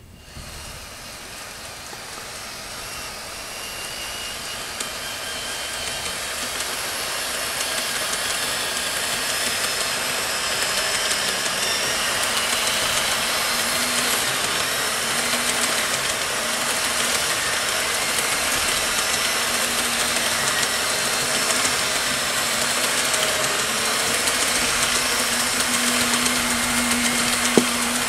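Running noise of a 16-car KATO N-gauge E4 series Shinkansen 'Max Toki' model train: steady metallic rolling of its wheels on the track with a faint hum. It gets louder over the first ten seconds as the train gathers speed from the station and passes, then stays steady.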